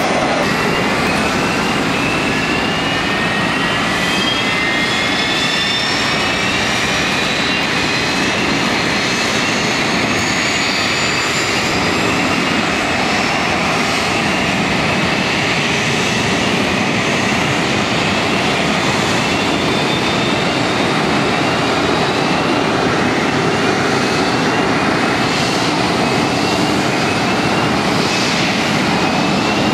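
Airliner jet engines running at high power, their whine rising steadily in pitch over the first dozen seconds as the Airbus A320-family jet accelerates down the runway. Later the engine noise holds steady with short rising whistles repeating about once a second.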